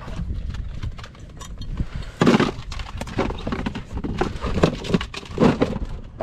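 A series of irregular knocks and clatters, the loudest about two seconds in and two more near the end.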